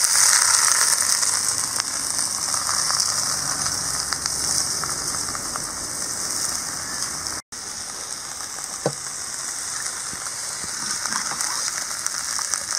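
Cut okra and onion slices sizzling in hot oil in a cast-iron kadai, stirred now and then with a steel ladle; the sizzle drops out for an instant about halfway through.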